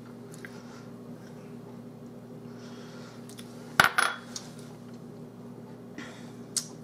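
Kitchen utensils clinking against a dish as salad-dressing ingredients are measured out: two sharp clinks close together about four seconds in and a lighter one near the end, over a faint steady hum.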